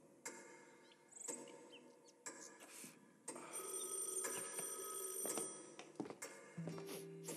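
Soundtrack of a film showreel playing in a website's video player: sound effects and tones that change abruptly at each scene cut, with a steady, bright, high ringing in the middle.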